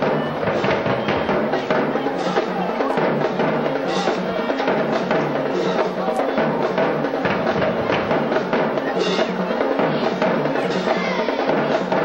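Band music with a busy drum beat, many quick percussion strokes over sustained pitched instruments.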